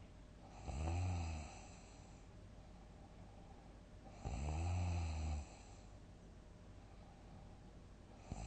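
A person snoring heavily in deep sleep: two long, low snores about three and a half seconds apart, each rising then falling in pitch, with the next one starting at the very end.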